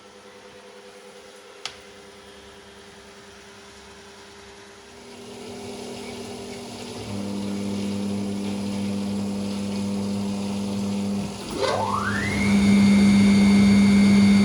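Gorenje PS 060 A washing machine with its Končar motor running: a steady hum that grows louder in steps, then about eleven and a half seconds in a whine rises quickly and holds at a high pitch as the motor speeds up, typical of the drum spinning up. A single click comes early on.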